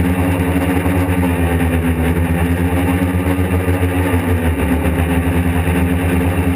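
Quadcopter's electric motors and propellers buzzing steadily, heard up close from on board the craft in flight, with slight shifts in pitch as the throttle changes.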